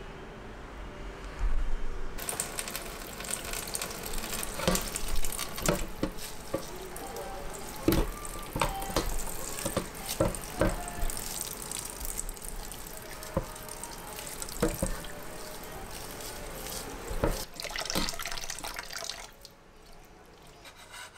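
Kitchen tap water running into a stainless-steel sink while hands rinse raw beef rib strips in a tray, with splashing and scattered knocks of meat against the tray. The water starts about two seconds in and stops shortly before the end.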